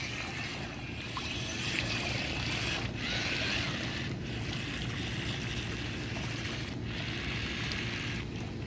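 Amphibious remote-control car running in pool water: a high electric-motor whine that comes and goes as the throttle is worked, over the steady churn of water.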